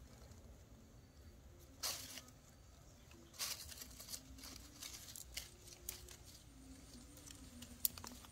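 Quiet, scattered rustles and crackles of dry leaf litter and cloth, a few seconds apart, with one sharp click near the end.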